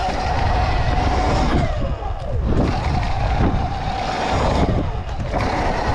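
Sur-Ron electric dirt bike's motor whining as it is ridden over dirt jumps and rollers, the whine mostly steady with its pitch dipping a few times as the throttle comes off. Wind rushes over the microphone and knobby tyres run on the dirt underneath.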